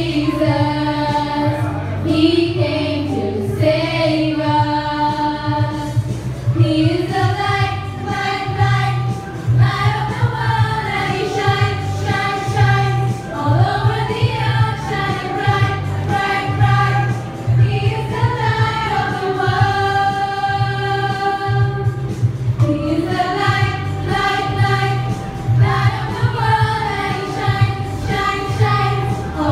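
A group of teenage girls singing a Christian song together in unison into microphones, amplified through a PA, with a steady low hum beneath.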